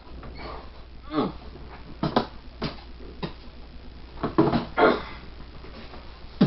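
A person burping in a series of short bursts, about six, one about a second in falling in pitch.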